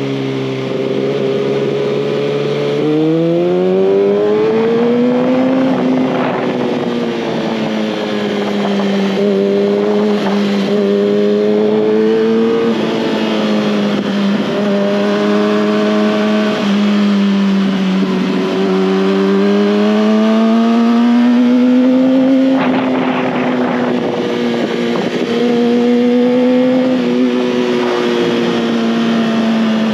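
2019 Kawasaki ZX-6R's inline-four engine running under way, rising in revs about three seconds in, then holding a steady pitch that rises and falls gently through the corners.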